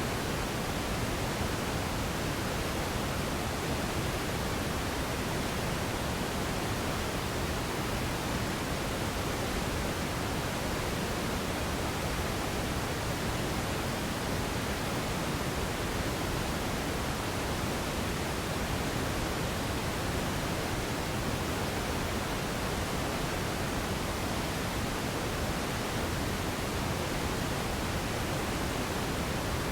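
Radio static hissing steadily and evenly, with no tones, voices or breaks.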